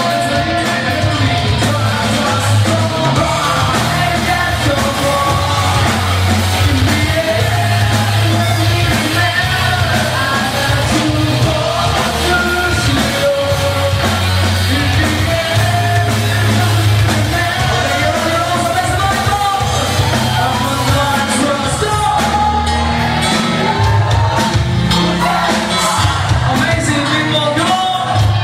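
Live rock band playing: a singer over electric guitar, bass guitar and drums, with a heavy pulsing low end.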